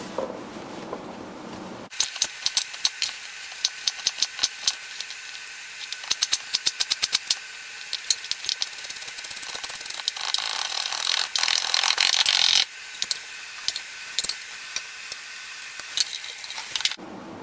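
Chef's knife chopping and mincing garlic on a wooden cutting board: sharp knocks in quick runs, some as fast as about eight a second, starting about two seconds in.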